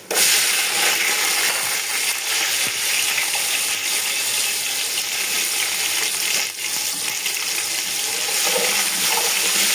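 Chopped onions tipped into hot oil in a large aluminium pot, starting with a sudden loud sizzle and then frying with a steady sizzle and a few light clicks. This is the first step of browning the onions.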